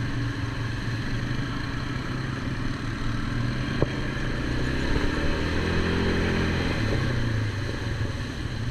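ATV engine running under way, its revs rising and falling a little past the middle, with a sharp click about four seconds in.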